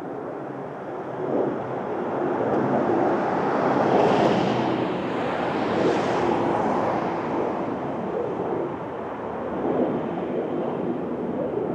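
Rushing outdoor background noise with no siren tone, swelling about four seconds in and easing after about seven.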